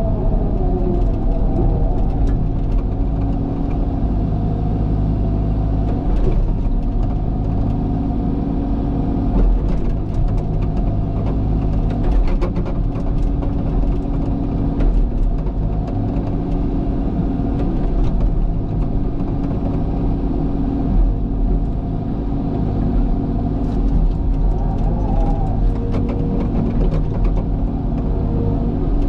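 Diesel engine of a tracked excavator running steadily under working load while it digs. Scattered clanks and knocks come from the bucket and machine.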